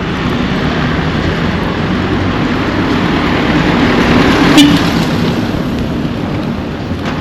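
A motor vehicle passing close by on the road: engine and tyre noise swell to their loudest a little past halfway, then fade away.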